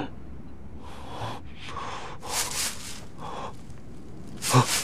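A man breathing heavily, several loud breaths in and out, ending with a short, sharper voiced gasp near the end.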